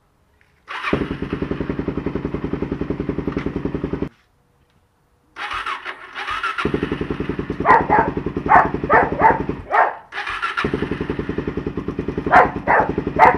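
Electric starter cranking the single-cylinder engine of a 2012 Suzuki DR-Z400S in three separate tries, each a rapid, even chugging that stops abruptly. Sharp pops come through during the second and third tries as the engine tries to fire.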